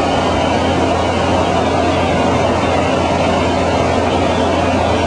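Small propeller plane's engine and propeller running at a steady drone, heard from inside the cabin, with a constant low hum under a broad rushing noise.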